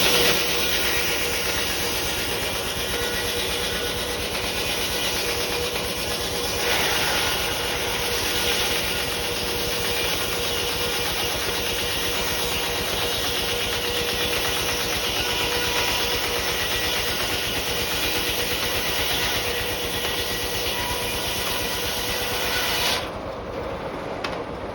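Steam-powered sawmill running: the 60-inch insert-tooth circular saw and its single-cylinder Uniflow steam engine make a dense, steady hiss with one steady tone through it. The sound drops off sharply a couple of seconds before the end.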